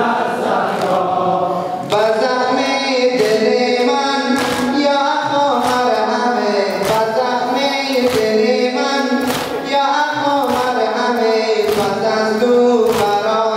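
A group of men singing a noha, a mourning lament for Hussain, in unison, fuller from about two seconds in, over sharp rhythmic slaps of hands on chests (matam) about once a second.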